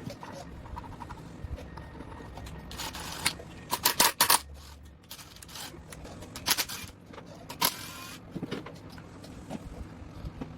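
Metal hand tools and engine parts clinking and clattering in a handful of sharp knocks, several close together about three to four seconds in and single ones later, some with a short metallic ring.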